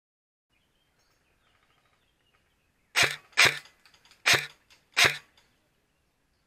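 Four sharp gunshots, irregularly spaced over about two seconds, starting about three seconds in.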